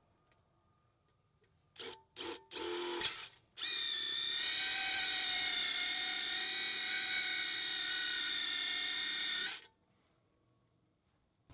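Cordless drill boring through the thin wall of a stainless steel pot: a few short trigger bursts, then about six seconds of steady drilling with a high ringing tone of the bit cutting the steel, stopping abruptly.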